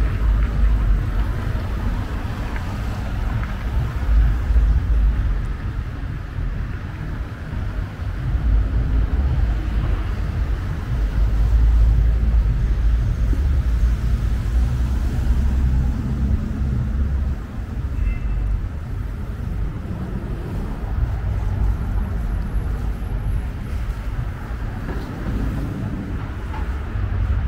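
City street ambience dominated by a heavy, uneven low rumble.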